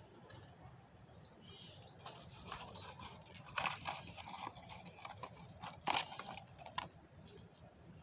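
Dry leaf litter rustling and crunching, with a few sharp crackles, the loudest about three and a half and six seconds in.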